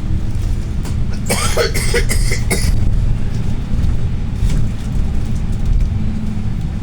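A person coughs hard several times in quick succession, about a second in, after feeling the cough coming up in the throat. Under it runs the steady low rumble of a moving bus's engine and road noise, heard from inside the bus.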